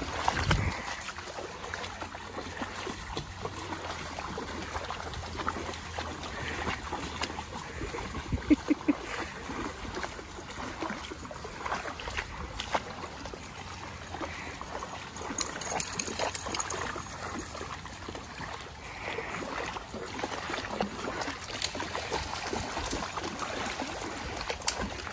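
A shallow creek trickling over rocks, with irregular splashing as several dogs wade through the water.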